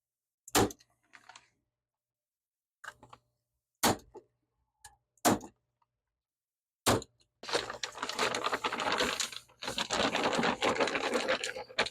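A few separate sharp clicks or knocks, then from about seven seconds in a dense crackling rustle as a flexible sheet is rolled up.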